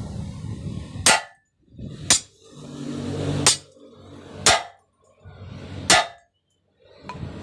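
Five sharp hammer blows on steel, about a second apart, each with a short metallic ring.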